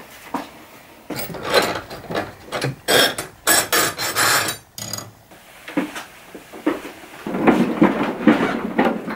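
Small metal rods and hex keys clinking and rattling against each other as a hand rummages through them in cardboard tubes. Near the end comes a longer scraping, knocking noise as the wooden swing-out shelf unit is moved.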